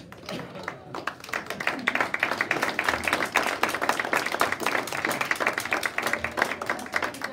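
Audience applauding a children's performance. Scattered claps build into steady, dense clapping within the first two seconds, then die away near the end.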